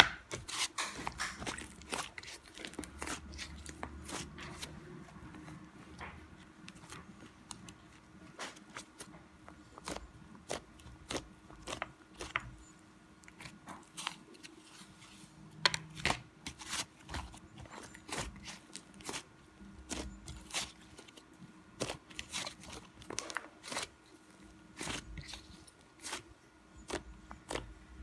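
Slime being squeezed, stretched and pressed by hand, giving irregular crackling clicks and pops, some louder than others, over a faint steady hum.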